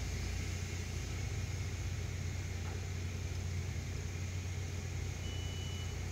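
Car engine idling, a steady low rumble heard from inside the cabin. A short high-pitched beep sounds about five seconds in.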